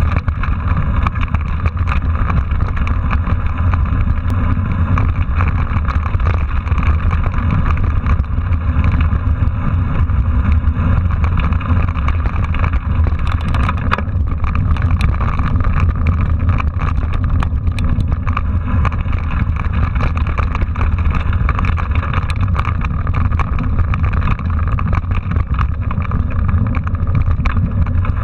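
Mountain bike riding over a rough dirt trail, heard through a handlebar-mounted camera: a steady deep rush and rumble of wind and ride vibration, with frequent small clicks and rattles as the bike and camera mount jolt over bumps.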